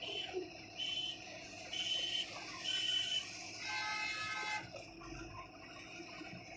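Traffic horns honking: four short high beeps about a second apart, then a longer horn blast with several tones about four seconds in, over steady road noise heard from inside a moving vehicle.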